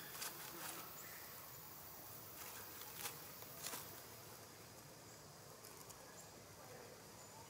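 Quiet outdoor ambience: a faint steady insect hum with a few short soft clicks in the first four seconds, the sharpest about three seconds in.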